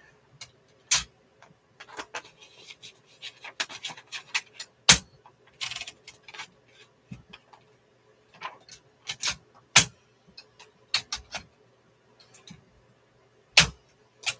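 A sheet of paper being loaded into a 1960s Smith Corona typewriter: irregular sharp clicks and knocks from the platen knob and carriage, a few of them loud, with a brief paper rustle about five and a half seconds in.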